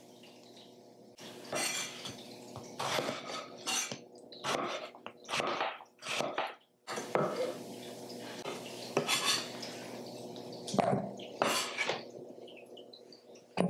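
Chef's knife cutting through tomatoes and knocking on a wooden cutting board: a dozen or so irregularly spaced cuts, starting about a second in.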